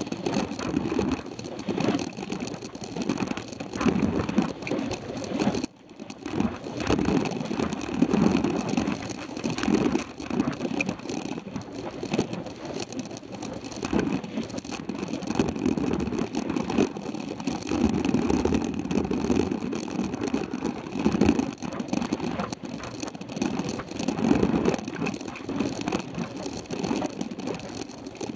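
Wind rushing over the microphone of a handlebar-mounted camera on a mountain bike ridden on a dirt road, mixed with the rumble and rattle of the tyres and bike on the rough surface. The noise surges and fades unevenly, with a brief sudden dip about six seconds in.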